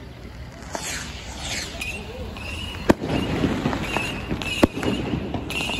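Fireworks and firecrackers going off close by: two sharp bangs about three and four and a half seconds in, with fainter cracks, a crackling spell between them, and whistles gliding in pitch about a second in.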